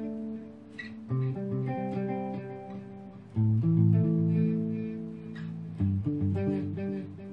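Clean guitar played through a Me all sound MP80D digital delay pedal: a chord already ringing, then three more struck about every two and a half seconds, each left to ring and fade.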